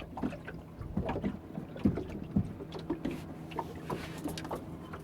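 A steady low motor hum with irregular short knocks and taps over it.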